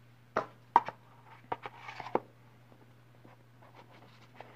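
Hands handling a mechanical vape mod: a handful of sharp clicks and light knocks in the first two seconds or so, with a brief soft rush of air around two seconds in, over a low steady hum.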